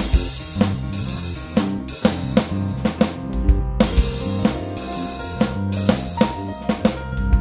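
Instrumental music led by a drum kit: a steady beat of bass drum and snare hits over deep bass, with some held notes above.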